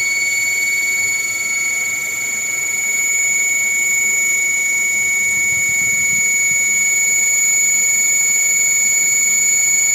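Panasonic air conditioner running, giving a steady high-pitched whine over an even hiss.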